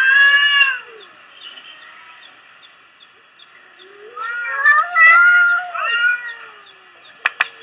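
Cats yowling in a fight, played back from a video: one drawn-out yowl at the start, then a longer run of rising and falling yowls from about four to six and a half seconds in. A faint regular chirping runs underneath, and a few sharp clicks come near the end.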